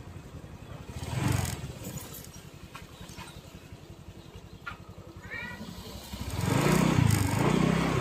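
Vehicle engine and road noise on the move, with a swell about a second in and a louder, wavering rumble from about six seconds in.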